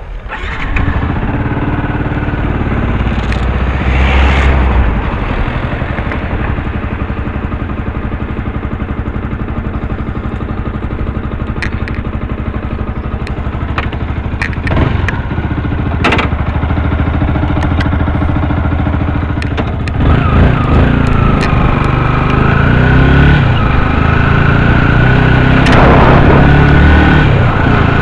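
Vehicle engine running steadily while driving along, with road noise and a few sharp clicks. About two-thirds of the way through it gets louder and a high whine comes in.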